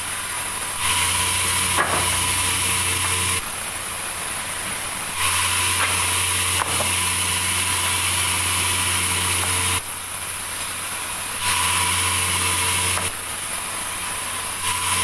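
Sawmill saw running through a large meranti log, a steady machine hum with a hiss over it that switches abruptly several times between louder and quieter.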